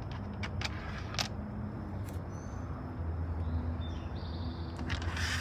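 A few light clicks and taps of mounting bolts being handled and set into the running board's slots, over a steady low hum. A hiss rises near the end.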